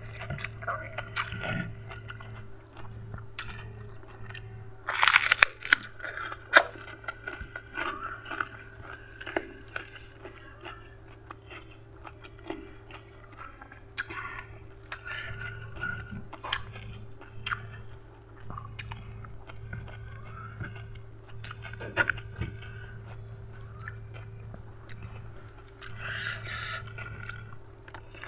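A person eating: crisp crunching bites and chewing, loudest about five to seven seconds in and again near twenty-two seconds, over a steady low hum.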